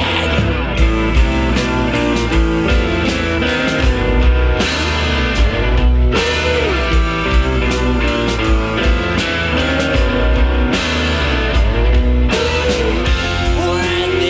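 Punk rock band music with guitar and drum kit playing, from a 1980 seven-inch single spun on a turntable.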